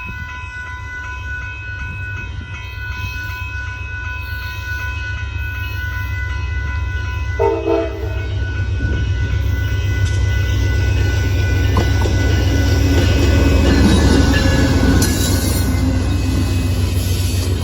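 Amtrak Texas Eagle passenger train, led by diesel locomotive 59, approaching and passing close by with a deep engine rumble. The locomotive's air horn gives one short blast about seven seconds in. Wheel and engine noise then grow louder as the train goes by.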